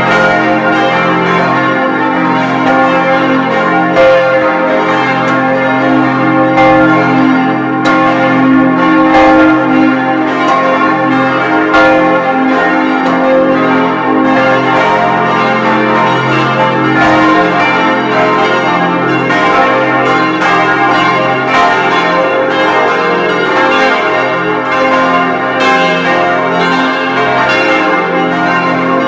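Several large bronze church bells ringing together in a full peal, heard close up inside the bell chamber. Their deep, overlapping tones hang on continuously, with fresh clapper strikes landing irregularly about every second.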